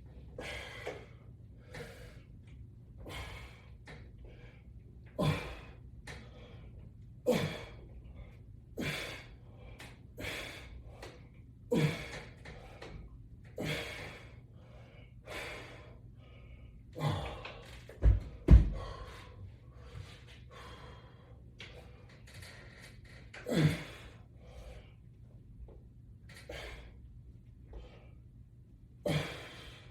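A man's sharp, rhythmic exhalations and gasps, one every second or two, as he works through a resistance-band exercise. Two louder thumps come about two-thirds of the way through, over a faint steady low hum.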